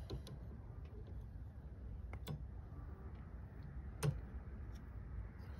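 Plastic clicks from a windscreen wiper blade's connector being worked onto the wiper arm: a few light ticks and two sharper clicks, about two seconds and four seconds in, the second the loudest.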